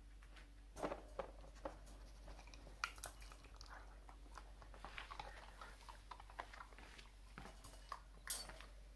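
Faint scattered clicks, knocks and rustling as a golden retriever puppy moves about and settles in a wire crate, the sharpest knocks about a second in, near three seconds and shortly past eight seconds.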